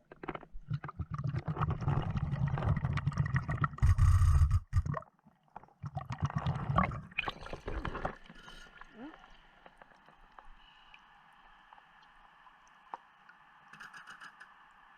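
Underwater gurgling and rumbling of a diver's exhaled air bubbles through a Blu3 Nemo hookah regulator, irregular and loudest about four seconds in. After about eight seconds it stops, leaving a faint steady hum.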